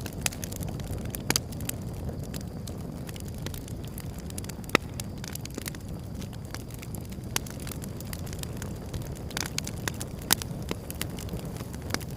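Outdoor wood fire burning: a steady low rush with irregular sharp crackles and pops, and a few louder snaps spread through.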